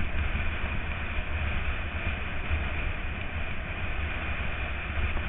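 Wind buffeting the microphone, with a steady rumble and the noise of a mountain bike's tyres rolling over a loose dirt singletrack.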